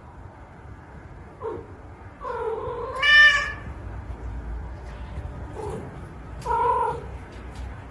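A cat meowing several times in drawn-out calls, the loudest and highest-pitched about three seconds in.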